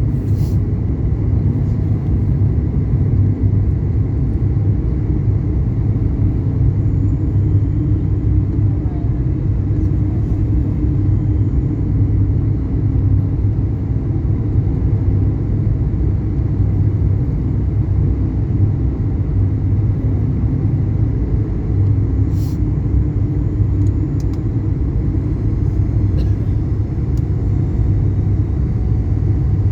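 Steady low rumble of engine and airflow noise heard inside an airliner cabin, with a faint steady hum and a couple of small clicks about three-quarters of the way through.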